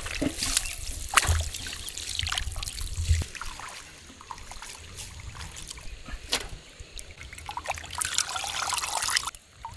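Water sloshing and splashing as hands rub and turn diced raw chicken being washed in a steel bowl, in uneven bursts: busiest in the first three seconds and again near the end.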